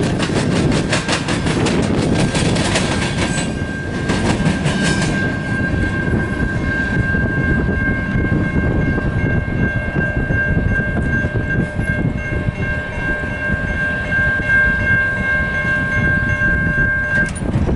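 Freight cars rolling past with rapid wheel clatter over the rail joints for the first few seconds, over a heavy rumble. Then the grade crossing's warning bell rings steadily over the rumble and stops shortly before the end.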